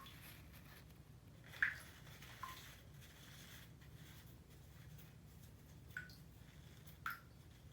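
Bathwater dripping and lightly splashing: four brief plinks spread over several seconds, the one about one and a half seconds in the loudest, over a faint low hum.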